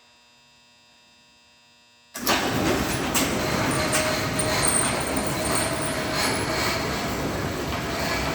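Near silence with a faint hum. About two seconds in, a commercial garage door operator suddenly starts up and drives the door: a loud, steady mechanical rattle with a few sharp knocks and a steady whine.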